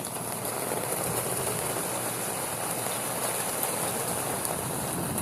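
Rain falling in a thunderstorm downpour: a steady hiss that swells up as it begins and then holds.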